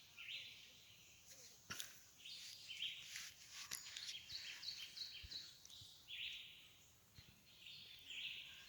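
Faint birdsong: many short chirps and tweets from several small birds, with a light click about two seconds in.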